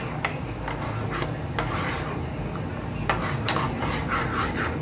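A cooking utensil stirring food in a pan, scraping and knocking against it in a string of sharp taps.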